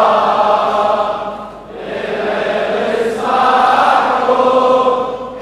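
Many men chanting a mourning-poem refrain together in a reverberant hall, in two long sung phrases with a short dip between them.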